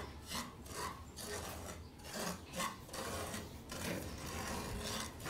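Wooden spoon scraping and stirring dry cornmeal as it toasts in a hot pot, a rhythmic rasping of about two to three strokes a second.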